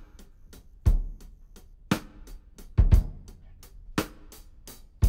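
Background music: a slow, steady drum-kit beat, with kick drum and snare alternating about once a second and light hi-hat ticks between them.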